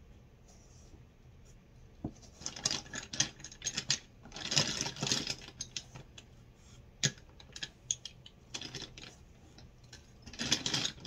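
Packaged cosmetics and nail tools being rummaged through in a cardboard box: crinkling plastic packaging and clicking, clattering items in irregular bursts, starting about two seconds in, with a single sharp click near the middle.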